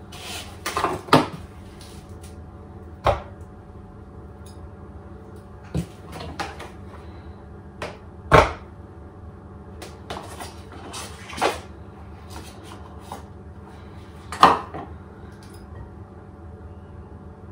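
Butter being worked out of its paper wrapper into a mixing bowl: the wrapper rustles, and there are irregular knocks and clatters against the bowl. The sharpest knocks come about 3 seconds in, about 8 seconds in and again near 14 seconds.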